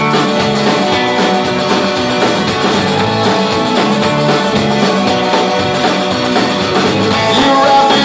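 Live rock band playing an instrumental stretch between vocal lines: electric guitars, bass guitar and drum kit, loud and steady, heard through a club's PA.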